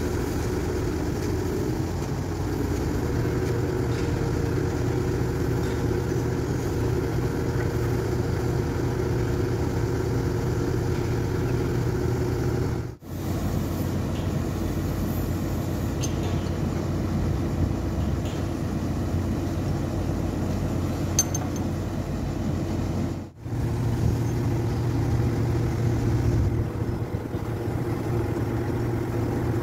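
Truck diesel engine running steadily to drive its Atlas knuckle-boom crane during a lift, a constant low hum. The sound drops out briefly twice, and the engine hum is a little louder for a few seconds after the second break.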